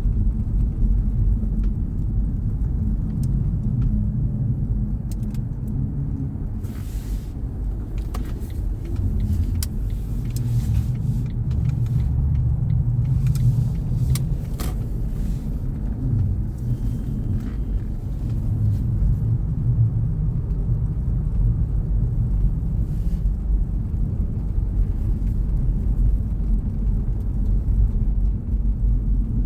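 Car driving on snowy city streets: a steady low rumble of engine and tyre noise, with a few faint clicks and ticks scattered through the middle.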